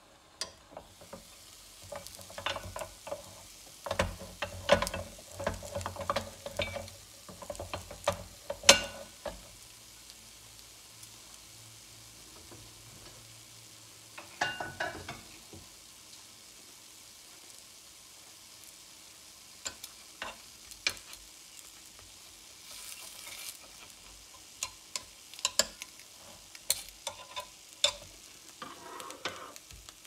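Takoyaki frying and sizzling in a hot sandwich cooker over a gas burner, with repeated sharp clicks and knocks from the metal cooker as it is handled and opened, mostly in the first ten seconds and again near the end.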